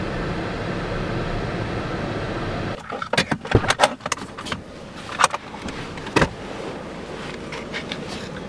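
Steady road noise inside a moving car, then a quick run of sharp clicks and knocks from the interior door handle and latch as the car door is opened, with two more single clicks a little later.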